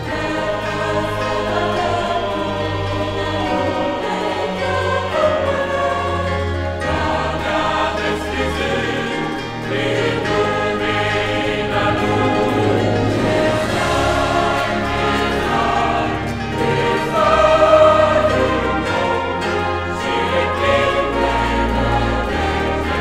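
Mixed choir singing a Romanian hymn with a brass band accompanying: trumpets, tuba and euphoniums over a steady bass line, swelling briefly louder about three-quarters through.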